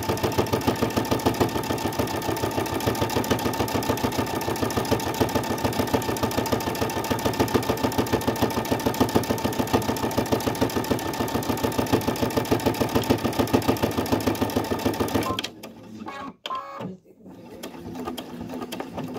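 Brother Innov-is V5 sewing machine stitching at a fast, even rate through the thicker part of a cushion seam, making a bit of a noise. The stitching stops suddenly near the end, followed by a few faint clicks.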